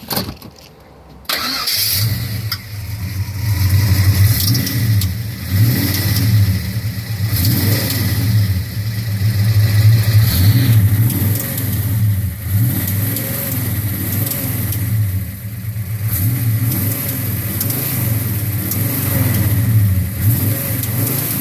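Oldsmobile 330 V8 engine with headers, cutting in suddenly about a second in and then running with a varying throttle. Through it runs a weird crackling rattle that sounds almost like small stones coming out of the headers, of a cause the owner does not know.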